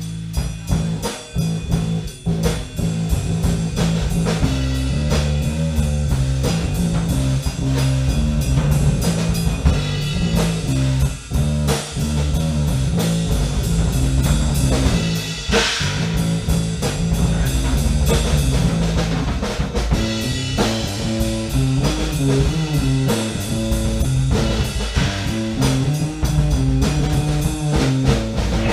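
Live band playing a freeform blues-rock jam: guitar over a repeating bass line and a drum kit keeping a steady beat.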